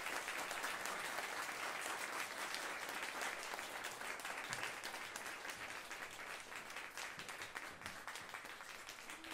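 Audience applauding, a dense steady clapping that fades slowly as it goes on.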